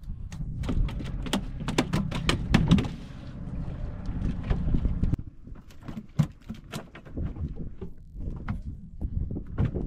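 Landed fish flapping and slapping on a boat deck: a quick run of sharp knocks for the first three seconds or so, then scattered knocks, over a low steady rumble.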